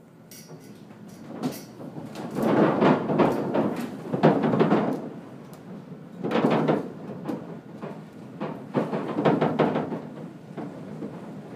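Wooden roof edges of a log cabin lifting and knocking in the wind: clusters of rattling, clattering knocks that come in about five surges with the gusts. It is the sign of a roof that is not secured down.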